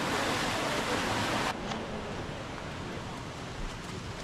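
Steady rush of running water. About a second and a half in, it cuts abruptly to a quieter, duller rush.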